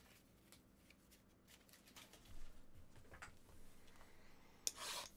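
Faint rustling and small taps of trading cards and paper sheets being handled on a tabletop, with a sharper rustle near the end.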